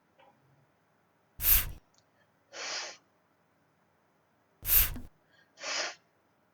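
The letter-F phonics sound, a short voiceless "fff" hiss, said four times in two pairs: a loud one followed about a second later by a softer repeat.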